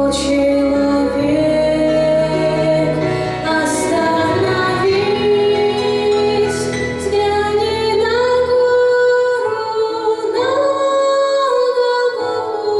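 Women singing a slow Russian Christian hymn melody with held notes, over a low sustained accompaniment that drops out about nine seconds in.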